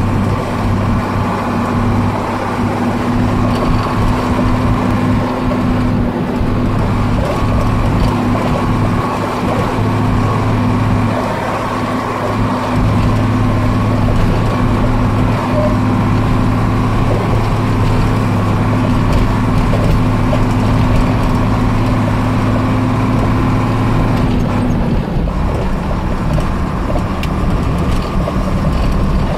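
Isuzu FVZ heavy truck's diesel engine running steadily under load as the truck drives on a rough dirt track, heard from on board. About 25 seconds in, the engine note drops to a lower pitch.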